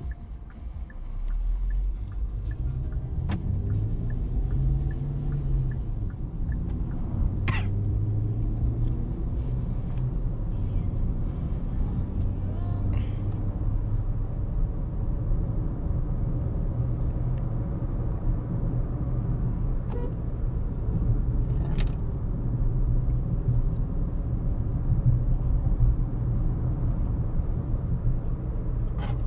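Hyundai Exter's 1.2-litre Kappa four-cylinder petrol engine running with road noise while driving. About a second in it grows louder as the car pulls away, its pitch rising over the next few seconds, then it settles into a steady cruise. A few brief clicks are heard along the way.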